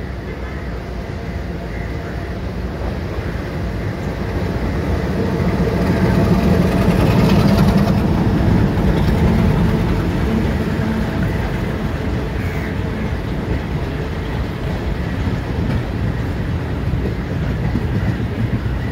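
Class M4 (ALCo MX620) diesel locomotive's ALCO 251 V12 engine running as it hauls a passenger train past, growing louder to a peak about seven seconds in as it passes beneath. The coaches' wheels then roll by on the rails in a steady rumble.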